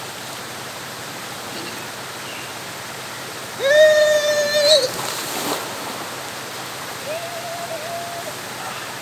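Steady rush of flowing spring water. About three and a half seconds in comes a loud, long, high-pitched shout, followed by a splash, and a second shorter shout near the end.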